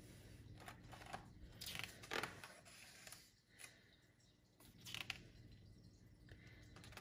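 Faint paper rustles of a hardcover picture book's pages being turned and handled, once about two seconds in and again about five seconds in.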